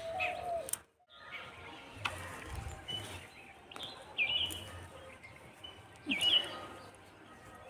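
Birds chirping: short, quick calls come now and then, the clearest a little before the middle and about six seconds in, over faint background noise.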